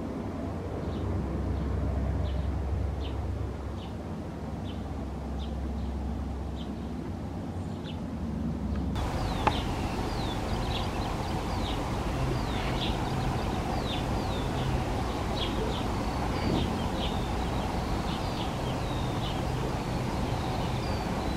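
Small birds chirping in short, repeated calls over a low steady rumble. A little before halfway the sound changes abruptly: the chirps come thick and fast, many of them quick falling notes, and a steady hum joins the rumble.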